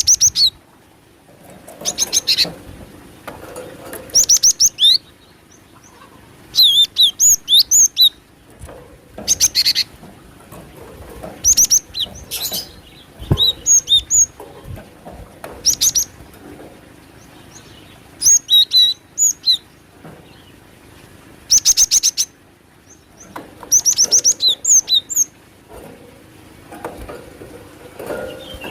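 Cinereous tit (gelatik batu) calling: short bursts of rapid, high, sharp chirps and trills, repeating every second or two. It is a bird-lure recording said to include the female's call.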